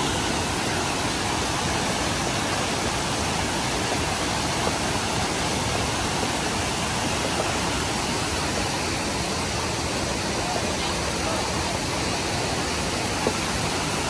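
Water of Kuang Si Falls pouring over tiered travertine cascades into shallow pools: a steady, even rush of falling and splashing water.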